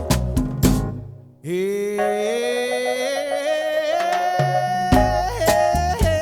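A song playing, with drums, hand percussion and singing. About a second in the beat drops away briefly, then one long held note slowly climbs in pitch until the drums come back in near the end.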